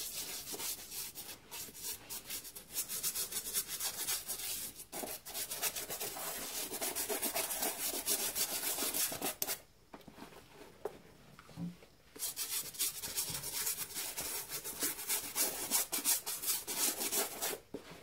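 Toothbrush scrubbing a white Nike Air Force 1 trainer with baking soda paste: a rapid, rasping run of short bristle strokes, broken by a brief lull about two-thirds of the way through.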